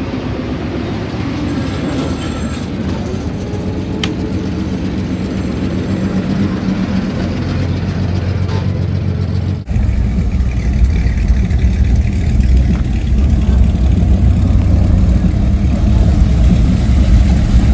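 Engines of classic Chevy pickup trucks running in a steady low-pitched drone. There is an abrupt cut about ten seconds in, after which the engine sound is louder.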